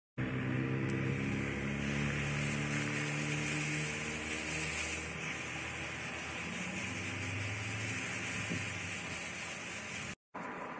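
Garden hose spray nozzle hissing steadily as water sprays onto rose bushes, with a vehicle engine humming underneath for the first half and again later. The sound breaks off for a moment near the end, then the hiss goes on more quietly.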